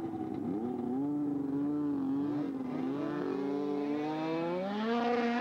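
Snowmobile engine running at high revs while a sled skims across open water. Its pitch climbs about half a second in, holds, then rises again near the end.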